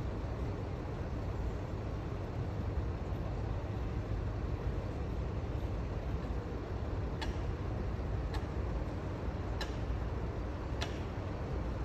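Steady low background rumble. Four short, high-pitched sounds come evenly about a second apart in the second half.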